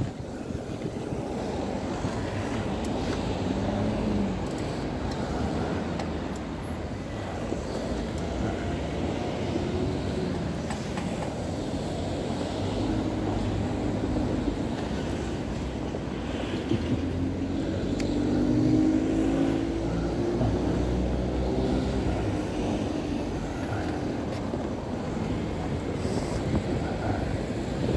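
Road traffic at a roundabout: car engines running close by in a slow queue, with one engine rising in pitch as a car pulls away about two-thirds of the way through.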